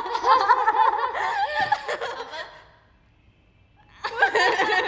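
A young woman laughing in two bouts, high-pitched, with a pause of about a second and a half between them.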